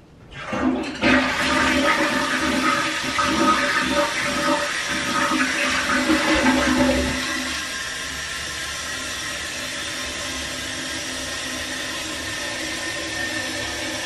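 Toilet flushing: a loud rush and gurgle of water starting about half a second in, easing after about seven seconds into a steady hiss as the tank refills.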